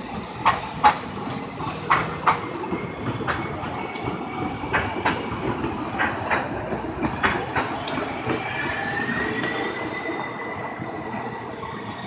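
Two-car Siemens S200 LRV4 light rail train passing, its wheels knocking irregularly over the trackwork through the first two-thirds. From about eight seconds in, a high wheel squeal sets in on the curve.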